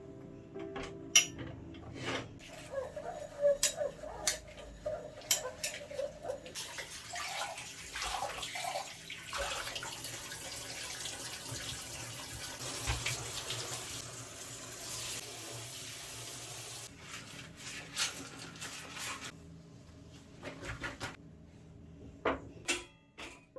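Tap water running into a sink for about twelve seconds, with sharp clinks and knocks of dishes before and after it.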